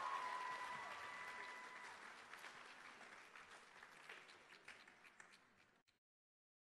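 Audience applause fading steadily and thinning out to scattered individual claps, then cut off abruptly about six seconds in.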